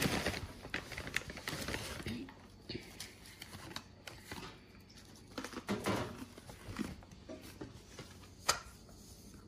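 Potting soil being scooped and sprinkled into a plastic planter tray, with scratchy rustling and light plastic clicks in uneven spurts. One sharp click comes near the end.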